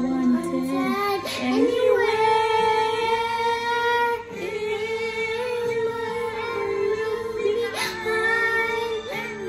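A young girl singing one long held vowel note as a voice-lesson exercise, steady with a slight waver, from about a second in until near the end, with a brief break about four seconds in.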